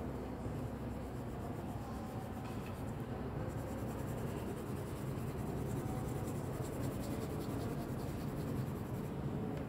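Crayon rubbed back and forth on a sheet of paper in quick strokes to colour in a background. The scratching grows denser about three and a half seconds in, over a steady low hum.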